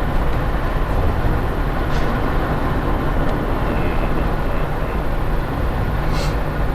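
Vehicle driving, a steady low rumble of engine and road noise heard from inside the cab.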